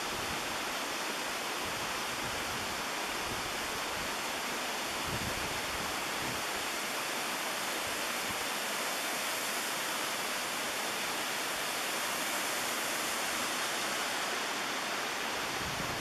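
Waterfall of about ten-odd metres: water rushing steadily over rock and into a pool and stream.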